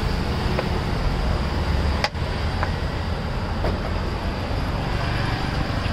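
Steady street noise with a low traffic rumble, and a few light knocks of a knife on a wooden chopping board as a block of paneer is sliced, the sharpest about two seconds in.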